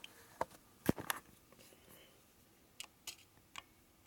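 A handful of short, sharp metal clicks and taps as a tool presses against a freshly fitted snap ring on an engine shaft, testing whether the ring is tight and won't spin. The loudest click comes about a second in, and three lighter ones come near the end.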